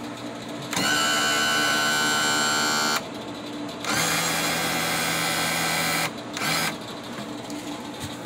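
Electric power trim/tilt pump of an outboard motor, run from a transom rocker switch: a steady whine for about two seconds, a pause, then about two seconds more with a slightly different tone, and a short blip after that. The trim/tilt unit is working.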